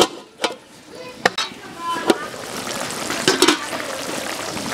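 A few sharp clicks, then eel and okra curry bubbling and sizzling steadily in an open aluminium karahi over a wood fire.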